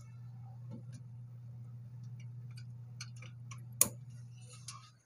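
An Ethernet (LAN) cable being plugged into the back of a PC: scattered small clicks of handling and one sharp, louder click a little before four seconds in as the plug snaps into the port, over a steady low hum that cuts off near the end.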